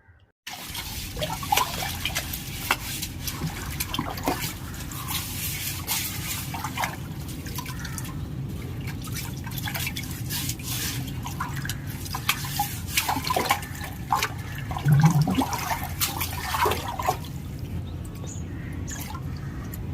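Water splashing and dripping in a large fish tank as it is worked in during cleaning, with many small sharp splashes over a steady wash. It starts suddenly about half a second in.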